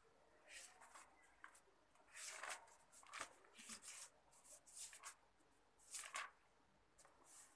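Faint, intermittent rustling and handling noise: about a dozen short, soft scuffs and swishes at uneven intervals, in a small quiet room.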